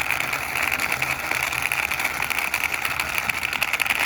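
Toy vehicle pushed along by hand, its plastic wheels and gearing making a steady, fast clicking rattle.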